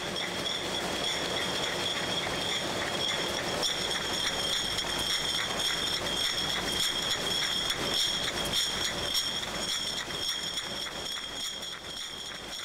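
Beer bottling line machinery running: a steady high-pitched whine over constant rapid clicking and clinking of glass bottles moving through the machines.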